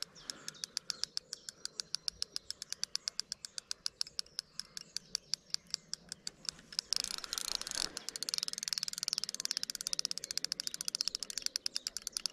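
The clutch of a fixed-spool reel ticking in a steady run of clicks as a hooked barbel pulls line off. The clicks come faster after about eight seconds, with a brief rush of noise just before.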